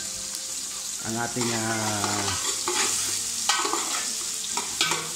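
Sliced ginger and onion sizzling in hot oil in a stainless-steel pot, sautéed to brown before the chicken is added, with a metal ladle stirring and clicking against the pot a few times near the end. A short held voice sounds about a second in.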